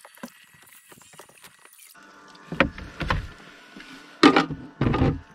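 A run of thumps and knocks on a fishing kayak: faint clicks at first, then four loud bumps in the second half, the loudest about four seconds in.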